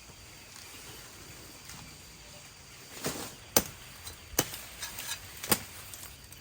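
Several sharp knocks or taps at uneven intervals, starting about three seconds in, over a faint steady background.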